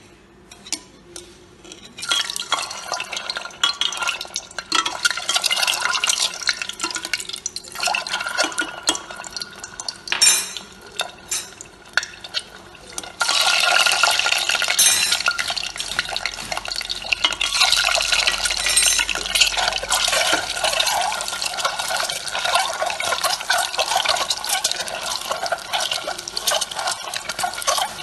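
Hot mustard oil crackling in an aluminium pressure cooker, then sizzling louder and more densely from about thirteen seconds in as boiled eggs fry in it.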